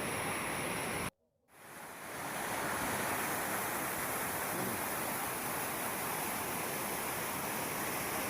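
Steady rush of falling water from Ramboda Falls. About a second in, the sound drops out abruptly for a moment, then fades back up.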